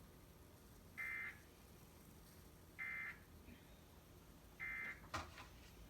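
Emergency Alert System end-of-message data bursts: three short buzzy digital squawks about two seconds apart, the signal that closes the broadcast test message.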